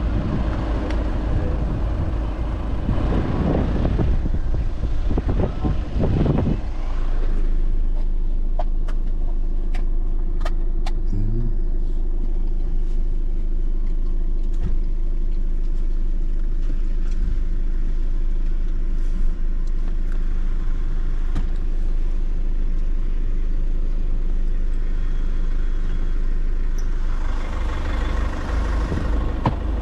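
Motor vehicle running: a steady low engine rumble, with louder rushing noise for the first several seconds and again near the end.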